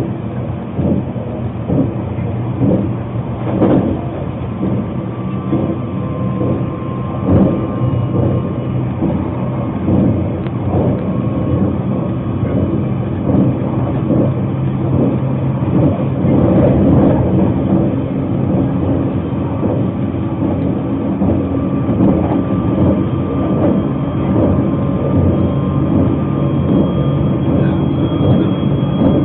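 Narita Express train running, heard inside the passenger car: a steady rumble of wheels on the rails with a low hum and occasional short knocks.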